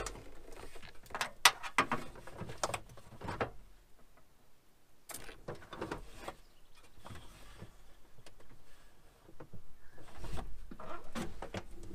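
Knocks and rattles of a plastic water container being set into its metal rack on an aluminium toolbox, a cluster of sharp clicks in the first few seconds. This is followed by a lull and then scattered small knocks and clicks of handling inside the toolbox.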